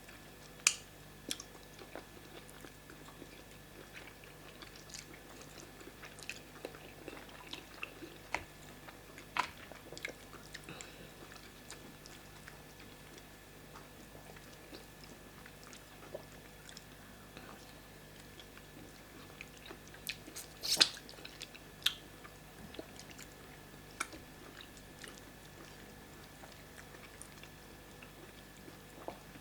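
Eating sounds: chewing of pounded yam fufu and vegetable soup with assorted meat, with scattered short sharp mouth clicks and smacks. The loudest comes in a brief cluster about two-thirds of the way in.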